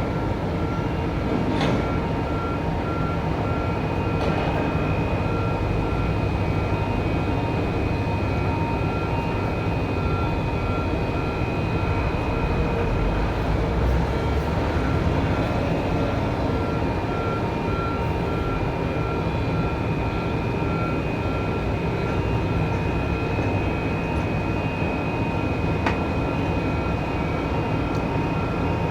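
Port container crane at work loading containers: a steady machinery drone with a repeating warning beep over it, and a sharp metallic knock or two.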